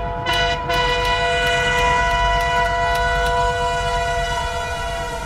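Train horn sounding one long, steady chord over a low rumble, starting to fade near the end.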